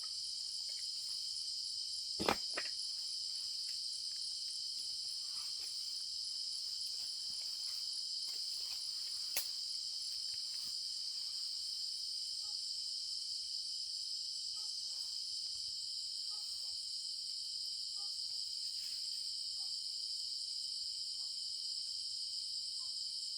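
Steady chorus of insects, a continuous high trilling with no break, broken by a sharp click about two seconds in and another about nine seconds in.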